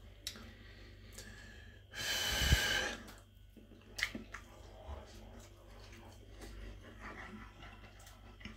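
One loud, breathy rush of air, about a second long and close to the microphone, about two seconds in: a person breathing out hard while eating. A few faint clicks follow.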